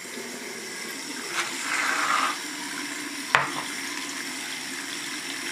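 Tap water running steadily into a sink. About two seconds in there is a short hiss of shaving foam dispensed from an aerosol can, and a little after three seconds a single sharp knock, the loudest sound.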